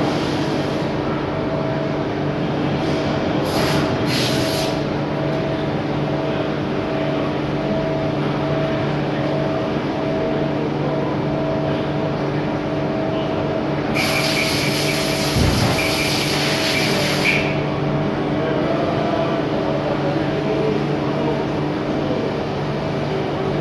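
Robotic machining cell running: the steady hum of machinery with a pulsing tone as the Kawasaki CX210 loading robot swings and places workpieces. Brief hisses come about three to four seconds in, and a longer hiss runs from about 14 to 17 seconds in, with a dull low thump in the middle of it.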